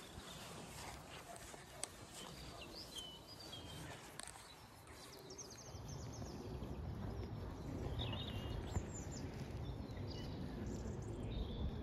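Wild birds chirping now and then over a low wind rumble, the wind growing stronger about halfway through.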